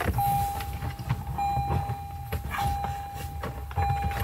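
Toyota Prado's in-cabin reverse warning beeper sounding, with the car in reverse gear: a steady mid-pitched tone in long beeps of about a second, each broken by a short gap. Under it are a low rumble and a few sharp knocks and clicks as the head unit is handled in the dash.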